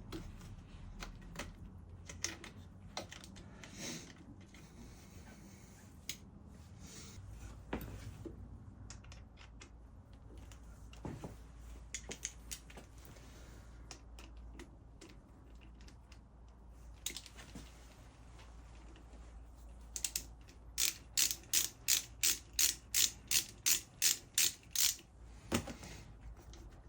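Scattered light clicks and taps of hand tools on metal parts, then a ratchet wrench worked back and forth in about a dozen quick clicking strokes, roughly three a second, near the end.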